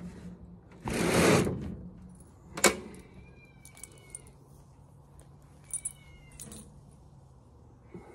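Aluminum dog box door rattling and clanking as it is opened, with one sharp metal clank about two and a half seconds in. A dog whines high and short twice, near the middle and again a few seconds later.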